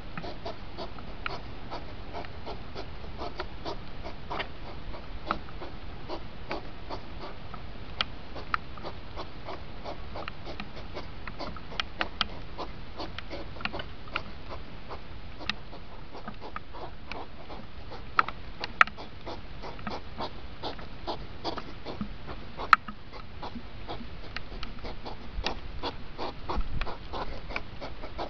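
Hedgehog snorting and huffing, as in the rut, sped up into a dense stream of quick clicks over a steady hiss. A few sharper clicks stand out about two-thirds of the way through.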